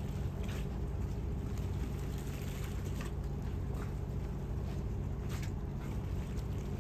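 Harbour water lapping and slapping irregularly against a moored boat's hull and the pier, over a steady low hum and rumble.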